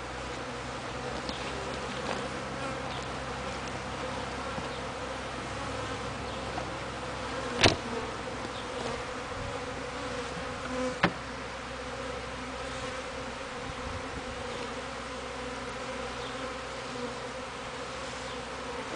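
Honeybees from a busy package-bee hive buzzing steadily in a dense hum, with two sharp knocks about eight and eleven seconds in.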